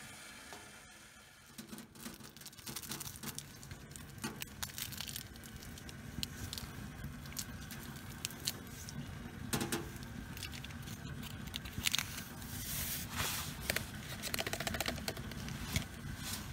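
Small wood-burning tent stove burning, with irregular small crackles and clicks over a steady low rumble.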